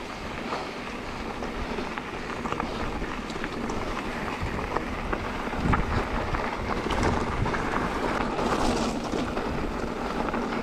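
Wind buffeting the microphone over the steady rumble of a mountain bike rolling down a dirt trail, with scattered small clicks and rattles.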